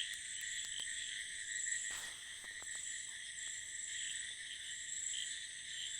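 Night chorus of frogs and crickets after heavy monsoon rain: a dense, steady, high trilling with no break. A few faint clicks stand out briefly, the clearest about two seconds in.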